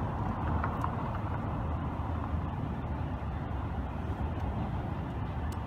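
Steady low rumble of outdoor road-traffic noise, even throughout with no distinct events.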